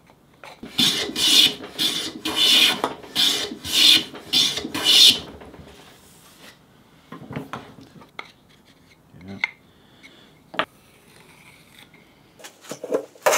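Metal bench plane taking quick shaving strokes along an oak strip held in a vise, about seven strokes in the first five seconds. Then a few light knocks and taps, and the planing strokes start again near the end.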